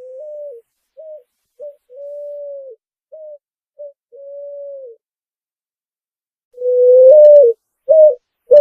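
Picazuro pigeon cooing: a soft phrase of low coos, short notes between longer drawn-out ones, then a louder, closer series of coos starting about two-thirds of the way in.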